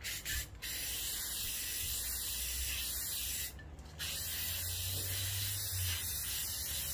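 Aerosol spray paint hissing out of the can in steady bursts as a second coat goes onto plastic car door-handle bezels: a short spurt, a long pass of about three seconds, a brief pause about three and a half seconds in, then spraying again.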